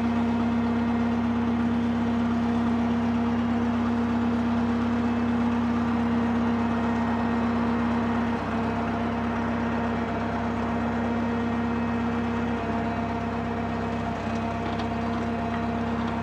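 Drott 85RM2 crane's engine running steadily under hydraulic operation, a constant hum that dips slightly in level about eight seconds in.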